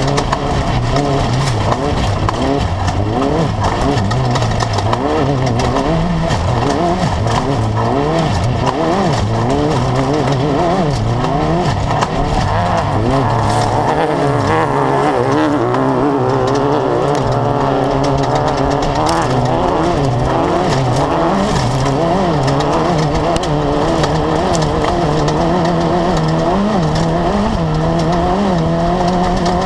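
Class 10 off-road race car's engine running hard, its revs rising and falling constantly as the throttle is worked, with frequent knocks and rattles over the rough course.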